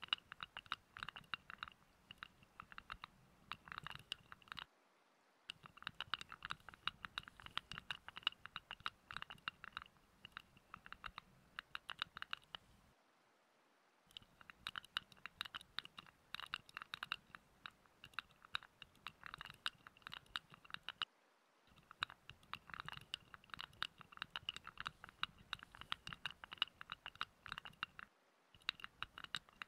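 Close-miked fingers scratching and rubbing in quick crackly strokes, the sound of an ASMR hand massage. It stops briefly about every seven to eight seconds, then starts again.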